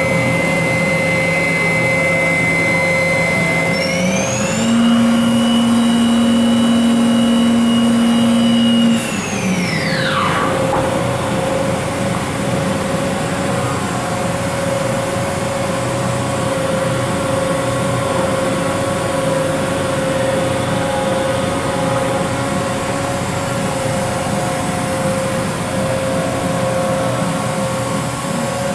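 Spindle of a Makino a51nx horizontal machining center running with a steady whine. It steps up in speed about four seconds in, then winds down to a stop about ten seconds in. After that the machine keeps up a steady hum with one constant tone.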